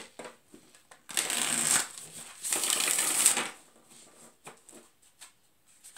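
A deck of tarot cards shuffled by hand: two rustling runs of cards about a second and two and a half seconds in, then a few light taps and clicks as the cards are handled.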